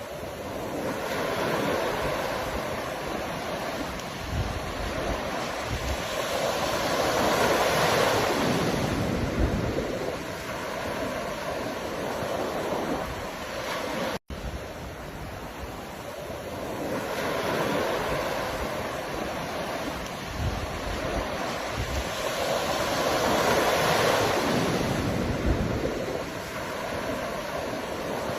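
Ocean waves breaking and washing up the shore in slow surges that swell and fade every few seconds, with some wind on the microphone. The sound cuts out for an instant about halfway through and the same stretch of surf starts again.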